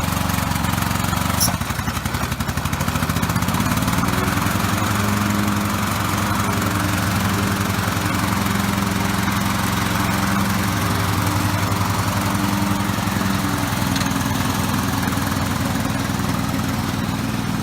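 Riding lawn mower engine running, with a click about a second and a half in, after which the engine speed rises over a few seconds and then holds steady. Its running is called kind of sluggish.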